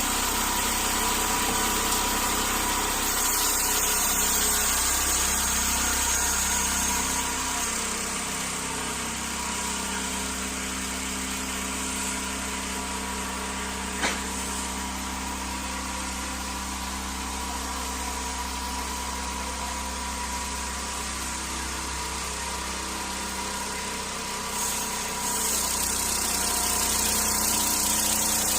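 An engine running steadily at an even speed, dropping a little in level for a long stretch in the middle, with one sharp click about halfway through.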